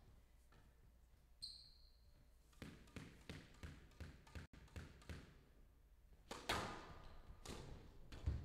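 Squash ball being struck in a rally: sharp knocks of the ball off rackets and court walls, light and regular at first, louder from about six seconds in. A short squeak comes about a second and a half in.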